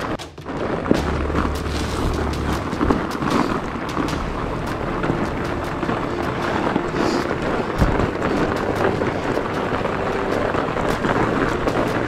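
Fat bike riding over a snow-covered trail, heard from a handlebar-mounted camera: a steady rumble of tyres on snow and the bike over rough ground, with frequent short knocks and rattles from bumps.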